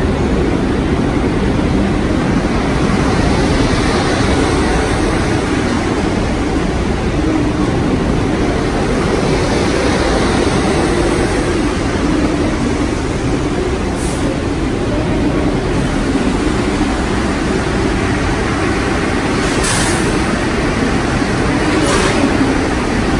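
Times Square Shuttle subway train (R62A cars) pulling into the station and rolling along the platform to a stop: a steady rumble of wheels on rails, with a few short hisses in the second half.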